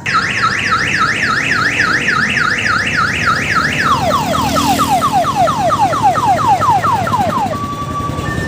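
Electronic siren of an odong-odong mini tourist train, sounding loud. It starts as a fast up-and-down warble of about five cycles a second, then about four seconds in switches to quick falling sweeps of about four a second. The low running of the train's diesel engine sits underneath.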